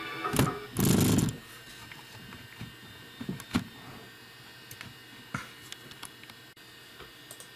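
Camera handling noise: a loud rustling burst about a second in, then scattered light knocks and clicks, over a low steady hum.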